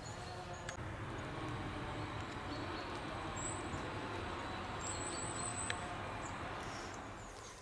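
Distant forestry machinery from tree felling, a steady engine drone, dying away near the end as the work stops.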